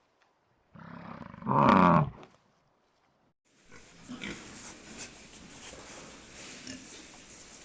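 An animal's loud pitched call lasting about a second and a half, then a short silence and a quieter, rougher run of animal noises.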